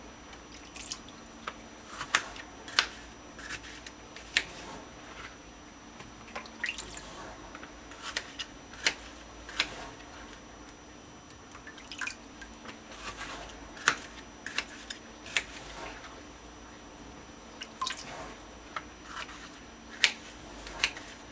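Kitchen knife cutting bitter melon into chunks on a plastic cutting board: irregular sharp clicks as the blade goes through the melon and strikes the board, often about a second apart and sometimes in quick clusters.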